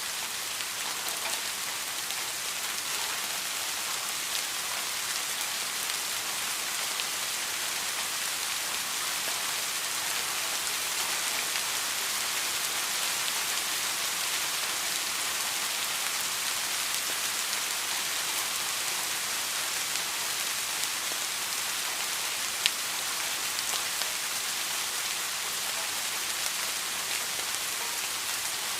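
Steady rain falling on a surface: an even, dense patter with no change in strength, and one sharp single click about three-quarters of the way through.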